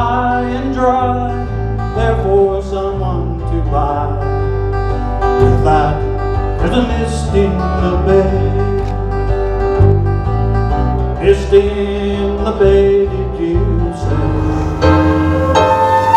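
Country-style tune on acoustic guitar with electric bass guitar. Near the end the bass stops and a flute with keyboard takes over.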